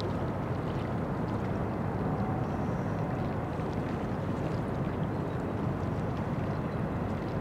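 Cruise ship Oriana manoeuvring in the harbour: a steady low rumble heard across the water, with no distinct events.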